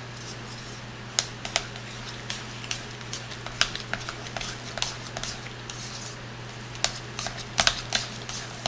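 Metal fork stirring a wet cheese-and-egg mixture in a bowl, its tines clicking irregularly against the side of the bowl.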